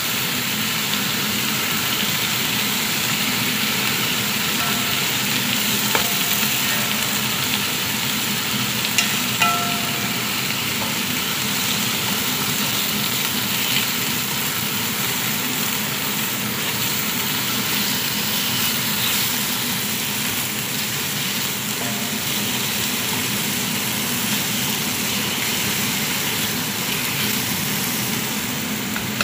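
Chicken fillet strips sizzling steadily in a little oil in a very hot frying pan, stirred and turned with a spatula, with a few sharp taps of the spatula against the pan.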